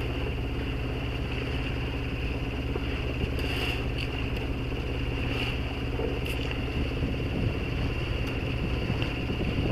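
Sailboat's inboard engine running at a steady speed, a constant low drone, while the boat motors with no sails up. A few faint clicks come through midway.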